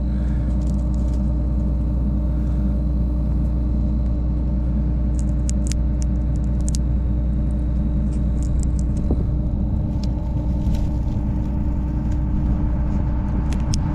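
Vehicle engine idling steadily, a constant low hum, with a few light sharp clicks about five to seven seconds in and again near the end.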